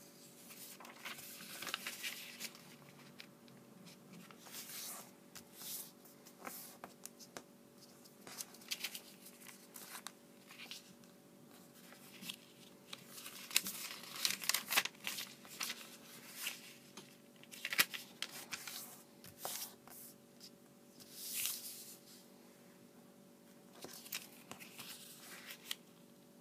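A sheet of origami paper rustling and crinkling in irregular bursts as it is folded and its creases are pressed flat, with a few sharp crackles partway through.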